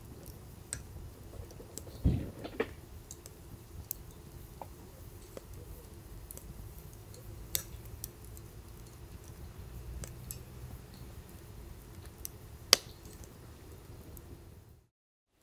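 Wood fire crackling in a small cylindrical metal fire pit: scattered pops and snaps over a low steady rumble, with a dull knock about two seconds in and a sharp loud pop near the end.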